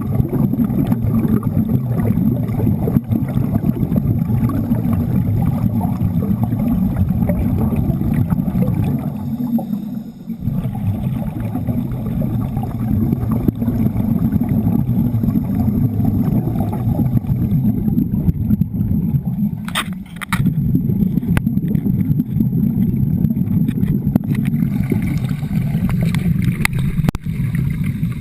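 Underwater stick-welding arc on a Broco rod, heard underwater as a steady low bubbling rumble. It drops out briefly about ten seconds in and again about twenty seconds in, with a few sharp clicks around the second break.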